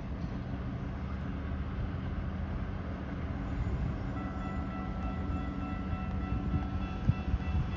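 Diesel locomotive of an approaching TasRail freight train, its engine a steady low drone. About halfway through, the level crossing's warning bell starts, adding steady high tones over the engine.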